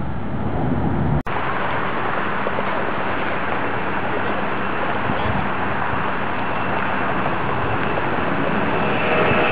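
Jet engines of a Boeing 767 at takeoff power, a steady roar that breaks off for an instant about a second in. Near the end, higher whining tones rise over the roar as the jet lifts off and climbs.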